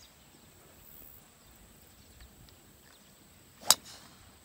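A golf club head striking a teed ball on a tee shot: one sharp crack about three and a half seconds in, with faint outdoor background before it.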